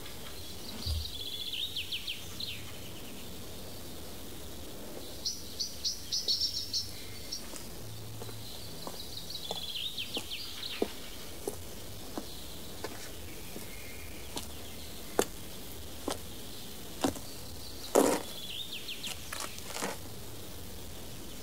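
Outdoor country ambience of birds chirping and trilling in several short bursts. Through the second half comes a series of light knocks, roughly a second apart, the loudest about eighteen seconds in.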